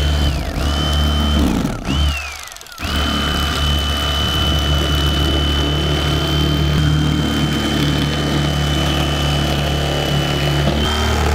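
Bubba corded electric fillet knife running while filleting a bluegill: a motor hum with a steady high whine. It is let off three times in the first few seconds, the whine falling in pitch as it winds down before starting again. After that it is held running steadily.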